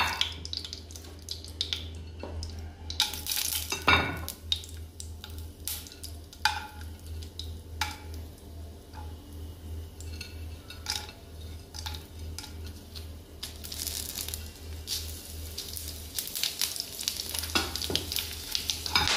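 Whole spices (bay leaves, cinnamon, green and black cardamom, cloves, peppercorns, cumin seeds) hitting hot oil in a non-stick pan, sizzling and popping, with clinks of a steel ladle stirring them. A low steady hum runs underneath.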